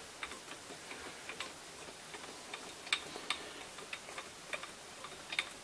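Faint, irregular light metallic clicks and ticks, a few a second, from the lathe's carriage being wound along the bed with a dial indicator riding on the test bar. The clicks are loudest about three seconds in.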